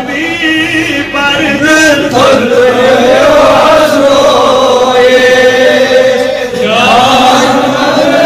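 A man reciting a naat, a devotional poem in praise of the Prophet, in a chanted, melodic voice with long, drawn-out, wavering notes.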